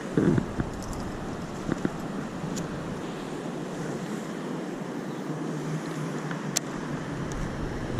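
Steady rush of river water, with a few short knocks near the start and a sharp click near the end.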